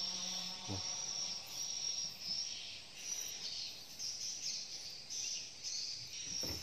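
Insects chirping in repeated high-pitched pulses, about one to two a second.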